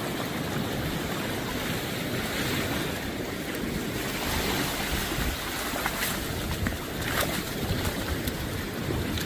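Sea surf washing on the beach, with wind buffeting the microphone and a few faint clicks.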